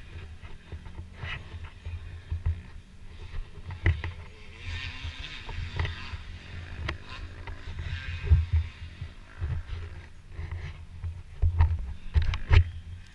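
Low, gusting rumble on a helmet-mounted camera's microphone, broken by scattered knocks and clicks of handling and movement, the loudest near the end.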